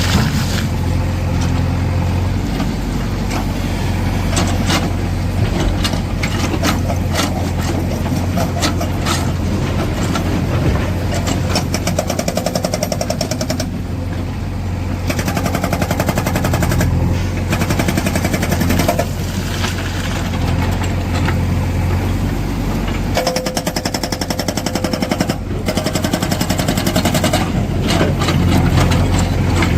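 Tata Hitachi Shinrai backhoe loader's diesel engine running under load while its hydraulic rock breaker hammers in rapid, evenly spaced blows, in several stretches with short pauses between.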